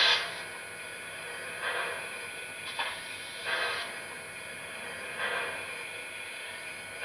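Model steam locomotive sound decoder playing standing-engine steam sounds: irregular hisses a second or two apart over a low steady background.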